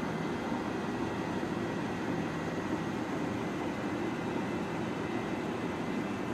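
Large Binns & Berry TB engine lathe running: a steady mechanical rumble of its drive and headstock gearing, with a faint steady whine above it.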